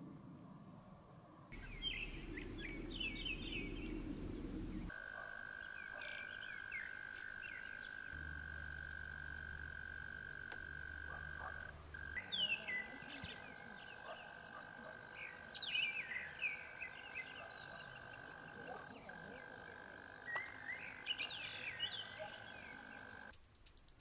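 Frogs calling: a chorus of many short chirps, over a steady high-pitched trill that starts a few seconds in and stops near the end.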